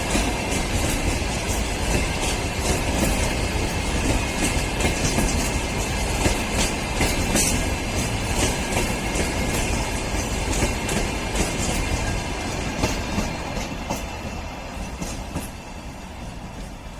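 Freight train wagons rolling past, with the wheels clicking steadily over rail joints; the sound fades away over the last few seconds as the train moves off.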